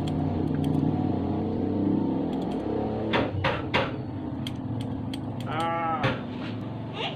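Scissors snipping hair: scattered light clicks and three sharper snips in quick succession about three seconds in, over a steady low hum. A short call that rises and falls comes near the end.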